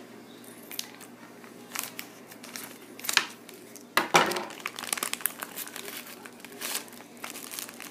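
Plastic foil blind-bag packet crinkling and tearing as it is opened by hand, irregular crackles with a louder rip about four seconds in.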